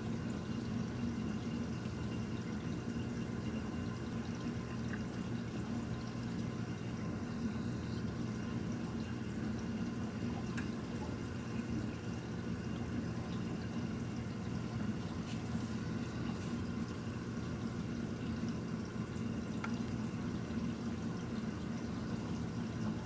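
Reef aquarium's circulation running: a steady low hum with water trickling and splashing.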